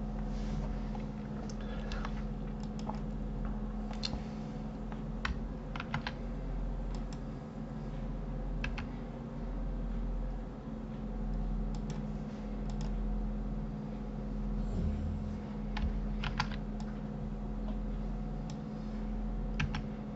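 Computer keyboard keys and mouse buttons clicking irregularly, in single taps and short pairs, while shortcuts are pressed and vertices are picked in a 3D modelling program. A steady low electrical hum runs underneath.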